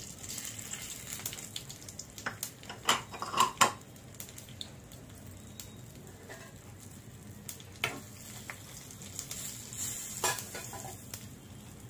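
Hot oil sizzling in a kadai as dried red chillies, curd chillies, black gram and cumin fry for a tempering. Scattered sharp crackles run through the sizzle, with several close together about three seconds in.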